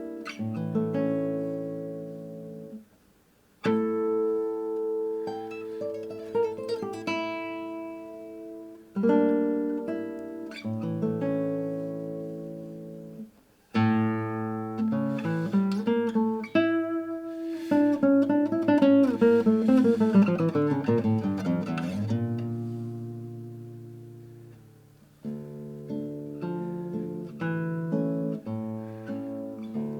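Acoustic guitar music: strummed and picked chords that ring out and fade, with brief pauses about 3 and 13 seconds in and a run of descending notes past the middle.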